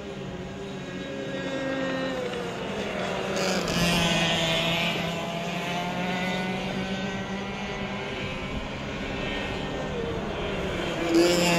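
Several two-stroke racing kart engines buzzing around the track in a pack, their pitch falling and then climbing again as they come off the throttle and accelerate. They are loudest as karts pass close about four seconds in and again near the end.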